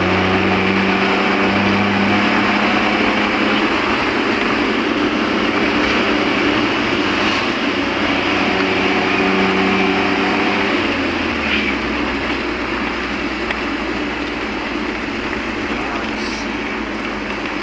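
Vehicle engine and road noise heard from inside the cabin as it drives along. A steady rush carries a low engine hum, whose note drops about two-thirds of the way through.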